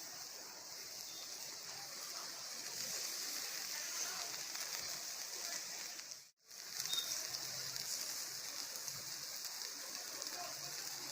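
Yogurt-and-oil marinated chicken legs sizzling steadily on a hot charcoal grill. The hiss cuts out for an instant just past the middle, then carries on.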